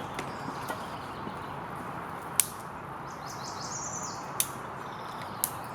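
Steady outdoor background noise with a short bird call about three seconds in, and three sharp clicks or knocks spread through the rest.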